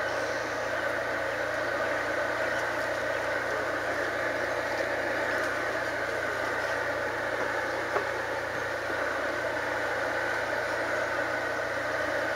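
Steady engine drone running evenly throughout, with one sharp click about eight seconds in.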